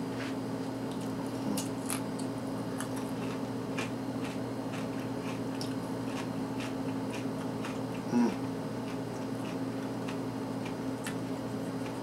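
Crispy pan-fried bacon being bitten and chewed: a run of small, sharp crunches, thickest in the first few seconds, over a steady low hum.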